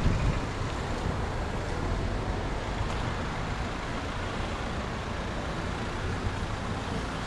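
Steady road traffic noise from cars and vans passing on a busy street, a continuous low rumble of engines and tyres.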